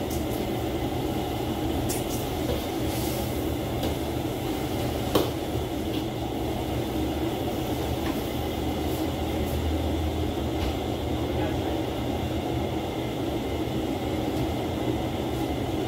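Steady roar of a gas wok burner with leafy greens sizzling in the hot wok, and a metal wok ladle knocking against the wok once about five seconds in.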